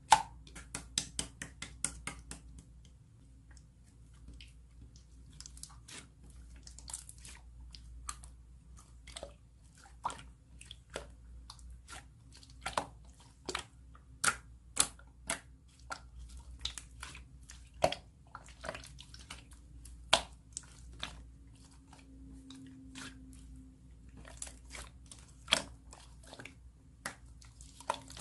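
Soft sky-blue slime being squeezed and pressed by hand, giving irregular sharp clicks and pops, several a second.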